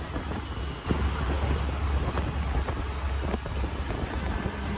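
An auto-rickshaw's engine and road noise heard from inside the moving open-sided cab, with wind rushing past the microphone. A low rumble grows louder about a second in and stays steady.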